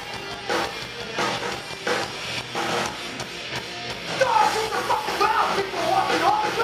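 Live crossover thrash band playing: distorted electric guitars and drum kit, heard from the crowd, with shouted vocals coming in about four seconds in.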